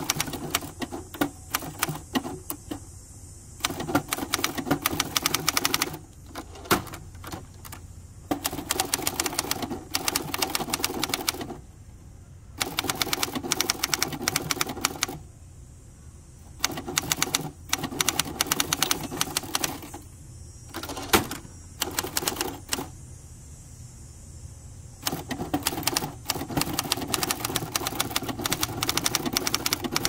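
1964 Hermes Ambassador manual typewriter being typed on: runs of rapid key and type-bar strikes a few seconds long, broken by short pauses.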